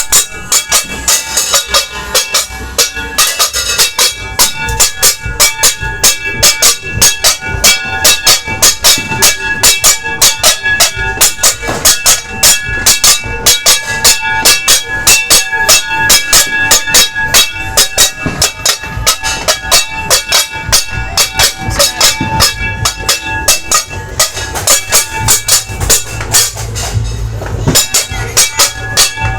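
Metal being banged hard and fast, about four strikes a second without a break, each strike ringing: New Year's noise-making meant to drive away bad luck.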